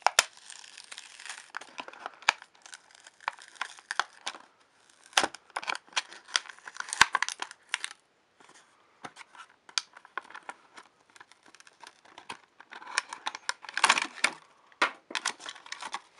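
Clear plastic blister packaging of a toy car being crinkled, pried and torn open by hand: irregular crackling, tearing and sharp clicks. There is a short lull a little past halfway, then a denser burst of crackling near the end.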